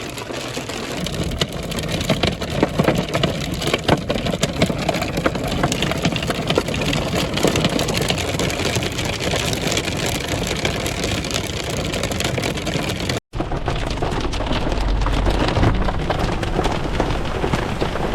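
Hail and heavy rain pelting a car's roof and windscreen, heard from inside the cabin as a dense clatter of many sharp impacts. After a brief break about thirteen seconds in, a low rumble runs underneath.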